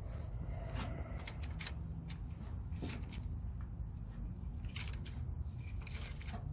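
Scattered light clicks and short scrapes of engine parts and tools being handled over a low, steady hum.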